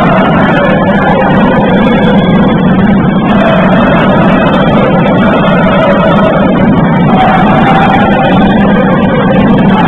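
Loud, distorted, steady din of a basketball hall during play, with faint drifting tones over it.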